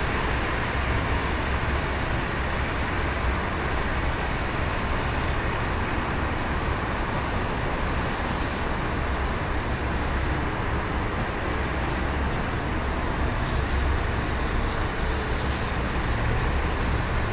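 Steady city road-traffic noise: a continuous rumble of cars on a multi-lane road, with no distinct events.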